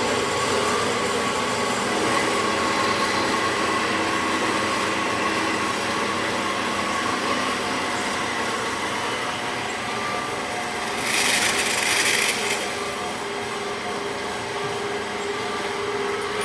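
Several horizontal bandsaws running at once, cutting one-inch stock with a steady hum and faint whine. A brief loud hiss about eleven seconds in.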